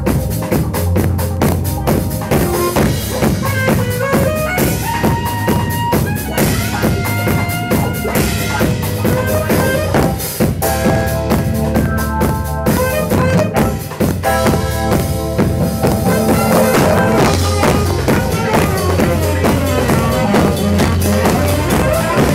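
Live band music with a drum kit keeping a steady beat under a melody that steps up and down in pitch.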